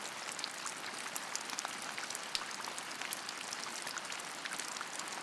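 Steady rain pouring down: a constant hiss dotted with many sharp, separate drop hits.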